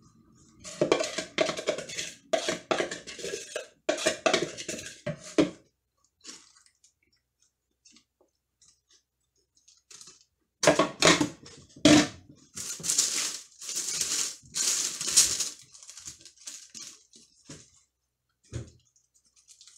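A metal fork scraping and tapping in short repeated strokes as chocolate icing is spread over a sponge on baking paper, in two spells with a pause of several seconds between.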